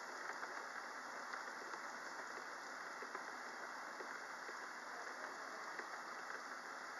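Rain falling steadily: an even hiss with a few small ticks of drops scattered through it.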